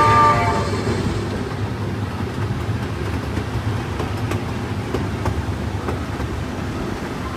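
Small amusement-park circus train rolling along its narrow-gauge track: a steady low rumble with a few faint clicks from the wheels. The ride's soundtrack music fades out within the first second.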